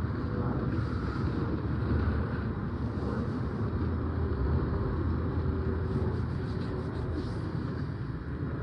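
Steady low rumble of road traffic and vehicle engines, with a few faint ticks about two-thirds of the way through.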